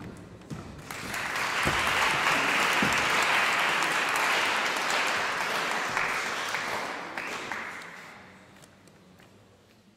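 Audience applauding, swelling about a second in and dying away over the last few seconds. A few low thuds sound near the start.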